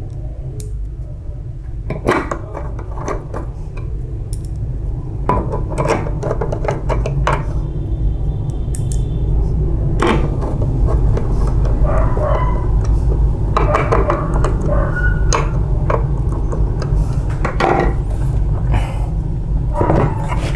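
Scattered metallic clicks and clinks of a copier drum unit's metal frame and a hand tool being handled, over a steady low hum.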